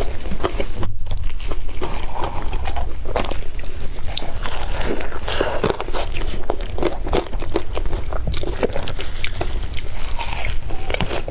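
Close-miked eating sounds: an egg wrap being bitten and chewed, with many quick mouth clicks and smacks.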